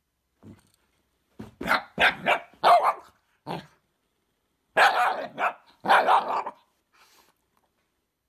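Shiba Inu barking at a fidget spinner: a quick run of five or six sharp barks, then after a pause two longer, rougher bark-growls.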